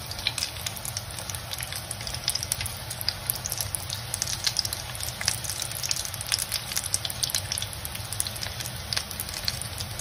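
Hot oil sizzling steadily around breadcrumb-coated potato-and-egg kebabs as they deep-fry in a pan, a constant hiss with many small crackling pops.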